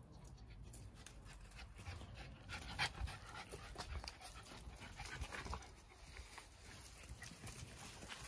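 Jack Russell terrier panting, with light irregular scuffs of its paws on loose, dug soil, busiest in the middle of the stretch.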